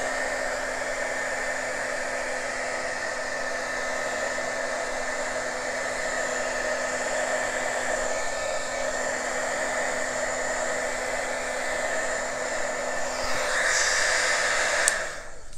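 Handheld heat gun blowing hot air over a wet acrylic pour, running steadily with a motor hum under the rush of air. It cuts off near the end.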